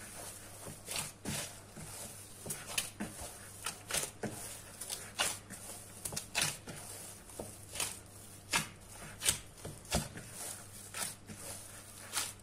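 Soft yeasted poğaça dough being kneaded by a hand in a thin plastic glove in a plastic bowl: irregular soft squishes and slaps, about one or two a second.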